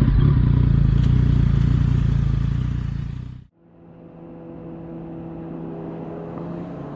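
Motorcycle engine running with a loud, low rumble that cuts off abruptly about three and a half seconds in. A quieter, steady engine hum follows.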